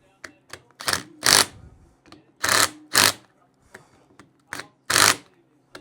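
Hand ratchet wrench tightening the bolts that hold the 4L80E transmission's pump halves together: a series of short rattling strokes, mostly in pairs about half a second apart, over a faint steady hum.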